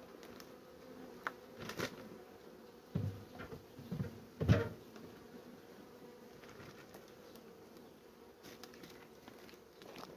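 Honey bees buzzing steadily over an open hive of honey frames, with a few short knocks and bumps about one to five seconds in.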